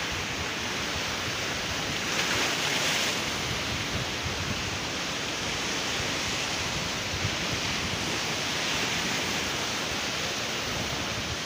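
Sea surf breaking and washing below a seawall, a steady rush with a louder surge about two seconds in, mixed with wind buffeting the microphone.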